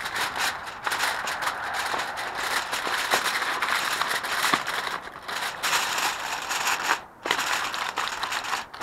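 Aluminum foil crinkling and crackling as it is pressed and crimped down around the edges of a pan, a dense run of small crackles with a short break about seven seconds in.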